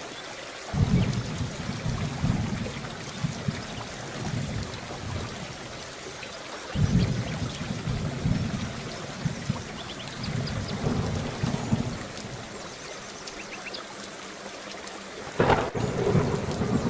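Steady rain with rolling thunder: low rumbles come in about a second in, again around seven and eleven seconds, and a sharper, louder thunderclap sounds near the end. Scattered drips tick over the rain.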